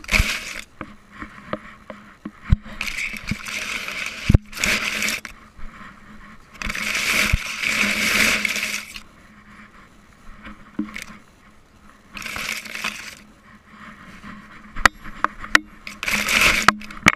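Rubbing and scraping of a dog-worn camera against the dog's body, in several bursts of a second or two, with a few sharp clicks and clinks in between.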